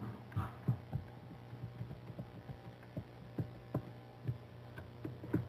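Steady low electrical hum with scattered soft taps and thumps at irregular intervals, about a dozen in all.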